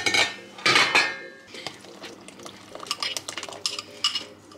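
Cooking utensil clinking and scraping against a pot while ingredients are stirred in: two loud scrapes in the first second, then a run of short knocks and clinks.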